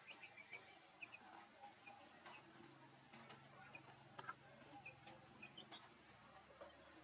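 Near silence with faint, scattered bird chirps, short and high, often in quick pairs, and a few soft clicks.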